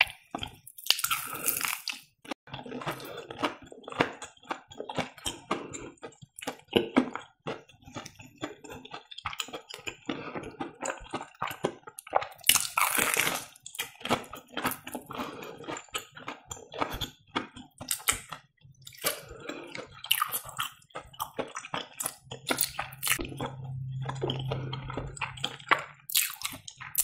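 Close-up eating sounds of breaded fried cheese: the crumb crust crackles and crunches under the teeth, with loud bites about a second in and again about thirteen seconds in, and the stretchy melted cheese inside is chewed wetly between them. Near the end a low steady hum runs for a few seconds.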